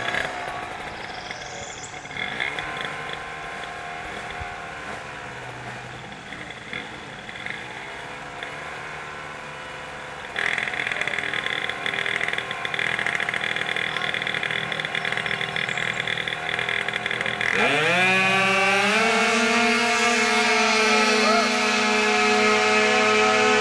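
Racing scooter's small engine revving up and down at the start line, then held at a steadier, louder pitch. It then launches: the revs sweep up steeply and hold at a high, even pitch as the scooter accelerates down the drag strip.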